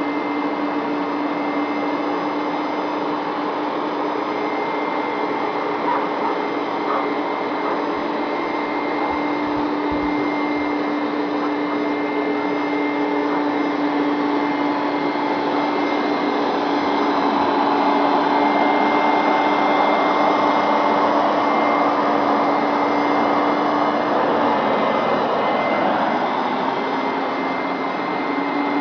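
Hoover Max Extract upright carpet cleaner running steadily, its motor humming under the suction noise, a little louder for several seconds past the middle.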